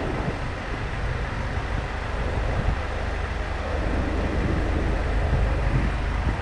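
Steady city street noise: an even low rumble of road traffic with a hiss over it.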